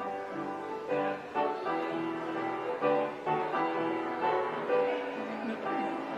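Piano music, a steady run of struck notes.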